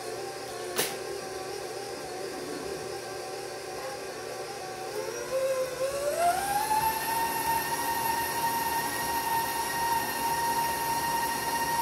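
Electric stand mixer's motor running at low speed as it mixes peanut butter cookie dough, with a single sharp click about a second in. About five seconds in the motor is switched up: its whine rises in pitch and settles at a higher, louder steady speed.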